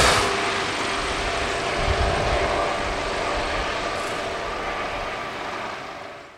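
Rescue helicopter flying away after takeoff: steady rotor and turbine noise that slowly grows fainter, then fades out near the end.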